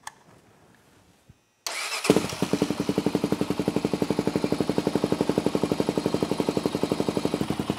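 Honda TRX400EX's single-cylinder four-stroke engine starting up about a second and a half in, catching at once and settling into a steady, even idle.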